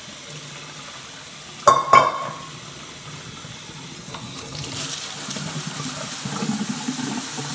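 Kitchen tap running steadily into the sink, with two sharp knocks close together about two seconds in; the rush of water grows louder and brighter about five seconds in.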